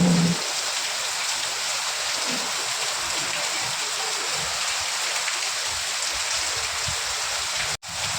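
Steady rain, an even hiss, cutting out for a split second near the end and then carrying on.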